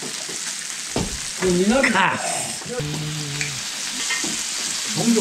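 Meat and greens sizzling in a round grill pan on a tabletop gas burner, a steady frying hiss, with a small click about a second in.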